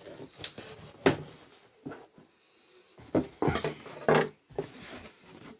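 Cardboard shipping box being opened by hand: irregular scrapes, rustles and knocks on the cardboard as the taped top is worked open. The loudest come about a second in and again around three to four seconds in.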